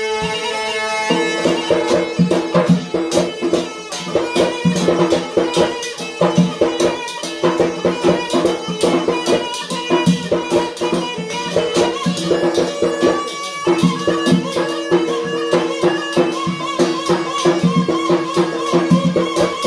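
Yemeni mizmar, a reed pipe, playing a reedy, wavering melody over held tones. A large barrel drum and a struck metal pan keep up a dense, driving dance beat.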